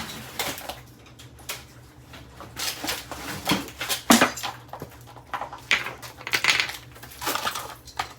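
Irregular clattering knocks and crunches of broken plastic and metal pieces from a smashed MainStays coffee maker being hit and handled.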